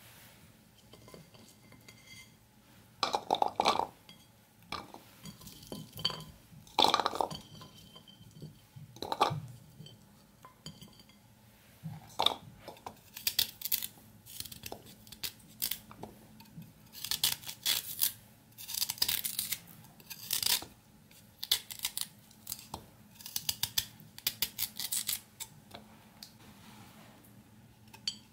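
Irregular light knocks and clinks as peeled garlic cloves and pieces of ginger are dropped from a ceramic plate into a plastic chopper bowl. In the second half come busier clicks and scrapes as a knife cuts a lemon over the plate.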